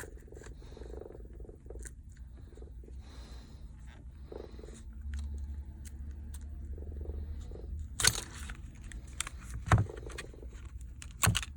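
Handling noise from prying a phone's glued back glass off with a thin plastic card: light scraping and clicks, then a few sharp knocks in the last few seconds as the panel and tools are handled. A low steady hum runs underneath.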